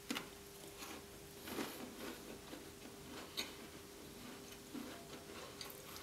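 A bite into a hard gingerbread-house roof piece with icing and candy buttons, then closed-mouth chewing: faint, irregular crunches and mouth clicks. A faint steady hum runs underneath.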